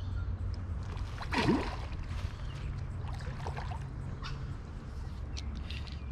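A single splash on the pond surface about one and a half seconds in, over a steady low rumble, with scattered faint high ticks.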